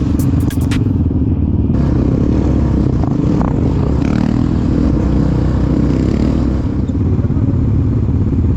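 Quad bike and motorbike engines running steadily.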